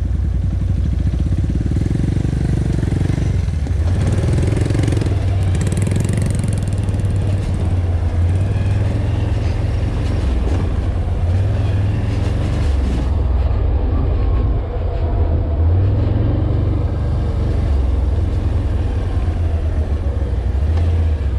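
ATV engine running steadily under way, its pitch shifting up and down with the throttle.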